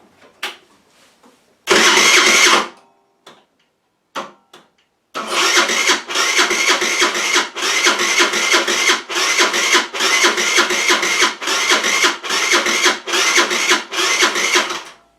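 A Rex RS500 scooter's electric starter cranks the engine: a short burst about two seconds in, then about ten seconds of continuous cranking with a regular pulse roughly twice a second. The engine does not catch, and the cranking drains the jump-starter powerpack until it gives up.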